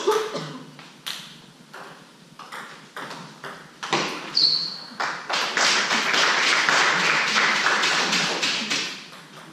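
Table tennis rally: the ball clicks off the rackets and the table at an uneven pace, and a shoe squeaks sharply on the hall floor about four seconds in. Then spectators clap for about four seconds after the point and die away near the end.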